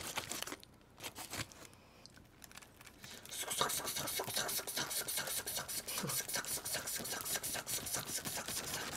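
Plastic knife sawing back and forth through roast chicken on aluminium foil, a rapid scratchy scraping that starts about three seconds in and keeps going.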